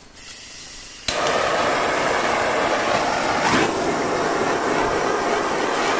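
Handheld gas torch being lit and burning. A faint hiss of gas gives way, about a second in, to a sharp click as it lights. A loud, steady rushing flame follows as it heats a stretched steel body panel to shrink it.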